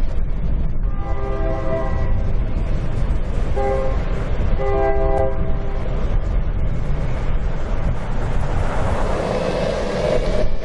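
Locomotive air horn sounding several notes at once for a railroad crossing: a long blast, a short one, then a long one, over a steady low rumble. A rushing noise builds near the end.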